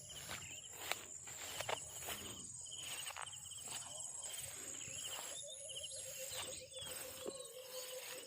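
Insects calling in the fields: a steady high-pitched whine with a repeating pulsed trill beneath it. Footsteps crunch at an even pace through the first couple of seconds.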